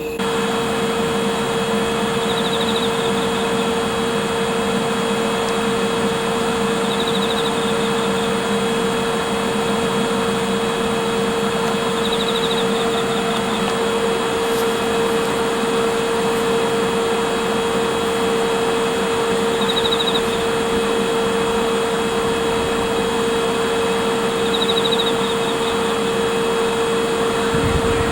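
Two EF64 electric locomotives standing with their cooling blowers running: a steady whirring drone with a strong constant hum. Short faint high chirps repeat every five seconds or so.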